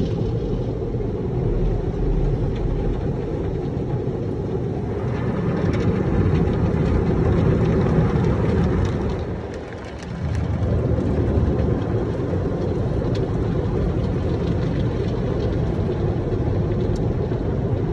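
Automatic car wash equipment spraying water and foam onto the car, heard muffled from inside the cabin as a steady low rumble and hiss with scattered light ticks. It drops away briefly about ten seconds in, then picks up again.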